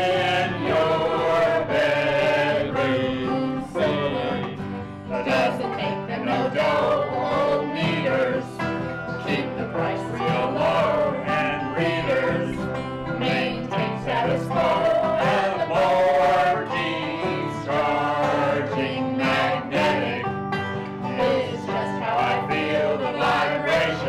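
A small group singing together in a country-bluegrass style, accompanied by acoustic guitar, fiddle and banjo.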